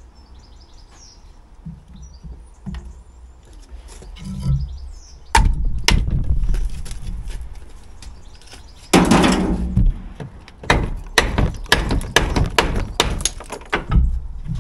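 Bricks and lumps of mortar being knocked off a garden wall by hand and dropped into a steel wheelbarrow. Two sharp knocks come about five and six seconds in, a loud clattering rush of rubble comes about nine seconds in, and then a run of clinks and knocks follows.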